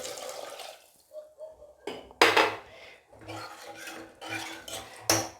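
Metal utensils and cookware clattering against a cooking pot in a series of sharp knocks, the loudest about two seconds in.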